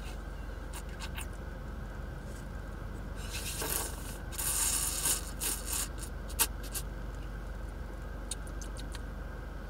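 Sipping a drink through a straw, with hissy slurps about three to five seconds in and a few small clicks and rubs from the straw and cup. A steady low hum from the running car's air conditioning lies underneath.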